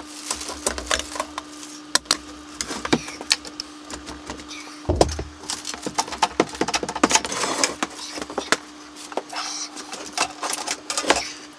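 Irregular clicks, knocks and clunks of heavy metal drill-press parts being handled, as the head of a bench pillar drill is lifted and fitted onto its column, with a heavier thud about five seconds in.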